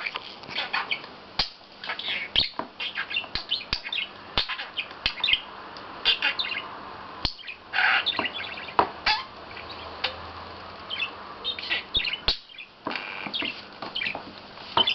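Pet budgerigar chattering and warbling in quick runs of chirps, with sharp clicks scattered among them and a short pause about twelve seconds in.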